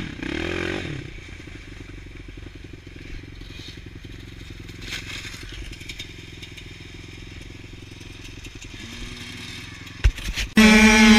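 Dirt bike engine revving up and down briefly, then running steadily at low revs as the bike rolls through slush. About ten seconds in there is a thump, then a sudden switch to much louder motorcycle engines at high revs.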